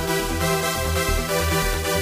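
Electronic dance music with a steady, pulsing bass beat of about two beats a second under sustained synth tones.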